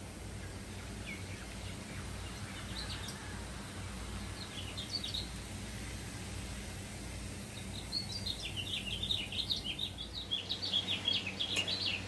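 Birds chirping, scattered at first, then a dense, rapid chattering over the last few seconds, over a steady low background hum.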